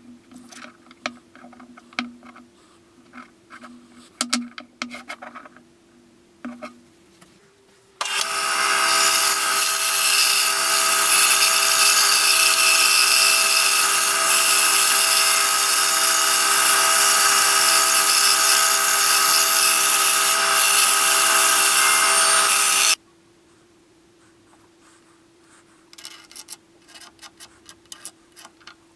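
Benchtop band saw running and cutting through a hardwood block. It starts abruptly about eight seconds in and cuts off about fifteen seconds later. Before and after it, a carpenter's pencil scratches on the wood in short strokes.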